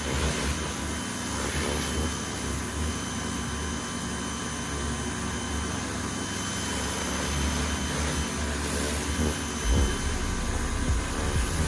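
A motor or small engine running steadily.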